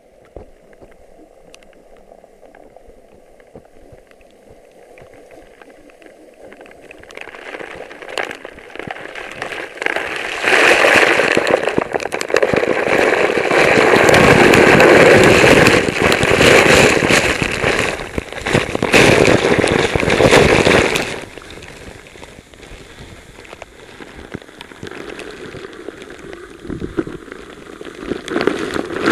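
Waterfall spray and falling water pelting a body-worn camera, a dense spattering rush. It is quieter at first, builds from about seven seconds in to its loudest for roughly ten seconds, then eases and swells again near the end.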